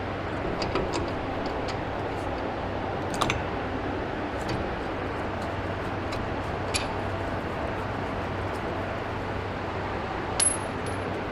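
Steady hum of a Lanair waste oil shop heater, with scattered light metallic clinks of hand tools on the brake parts. Two clinks, about seven and ten seconds in, ring briefly at a high pitch.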